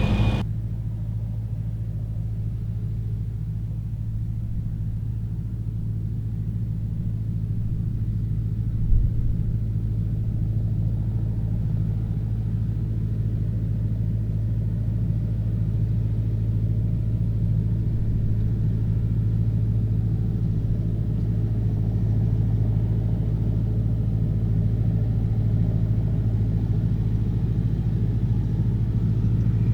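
Massey Ferguson 6470 tractor engine running steadily under load, pulling a working Fendt baler, with one brief low thump about nine seconds in.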